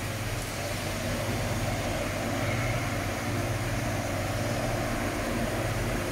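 Blast freezer running, its fans and refrigeration unit making a steady whirring with a low hum.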